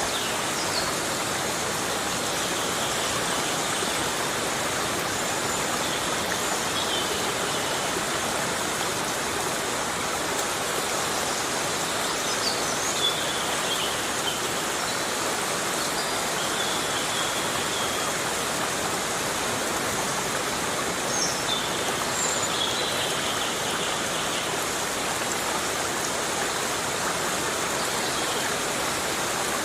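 Heavy rain falling steadily in a rainforest, an even hiss of rainfall. A few faint, short, high-pitched calls come through now and then.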